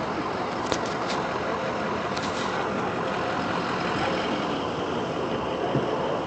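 Steady running of idling vehicle engines, with a few light clicks about a second in and again around two seconds in.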